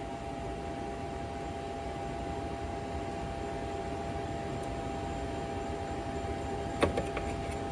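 Steady rushing noise of a handheld torch flame heating a rust-seized downpipe nut for the candle-wax trick, with two light metallic knocks near the end.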